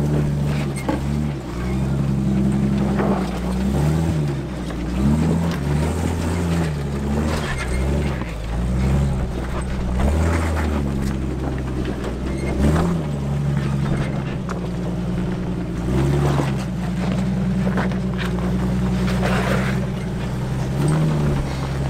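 Jeep Wrangler engine working at low speed while rock crawling, its pitch rising and falling again and again as the throttle is fed on and eased off.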